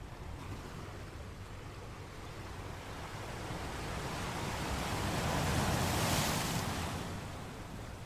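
Ocean wave breaking against rocks: the rush of water swells over a few seconds, peaks about six seconds in, then falls back into a steady low surf rumble.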